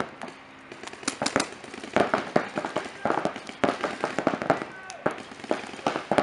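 Paintball markers firing rapid strings of shots, in several bursts with short pauses between.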